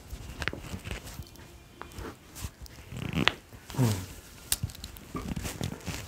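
Upper-back spine manipulation: a few sharp clicks, the loudest about three seconds in, as joints in the thoracic spine crack under a thrust of the hands. Short breathy vocal sounds falling in pitch come around the loudest click.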